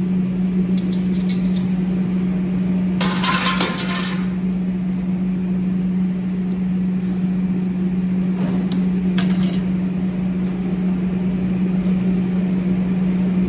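Steel colander and metal spoon knocking and scraping against a large steel cooking pot as cooked rice is tipped in and spread: a few light clinks, a longer clattering scrape about three seconds in, and two sharp clinks around nine seconds. A steady low kitchen hum runs underneath throughout.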